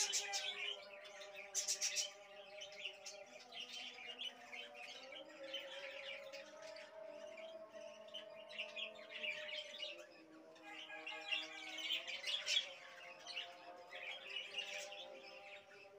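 A flock of caged budgerigars chattering and chirping in a continuous busy twitter, with louder bursts about two seconds in and again around twelve seconds in.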